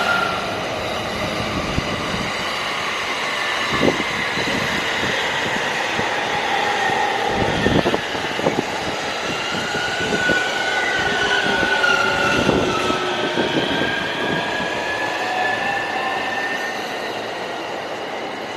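Electric commuter train pulling into a station and slowing, with several whining tones from the motors and brakes gliding in pitch. Wheel knocks over the rail joints come about 4 s in and in clusters around 8 and 13 s.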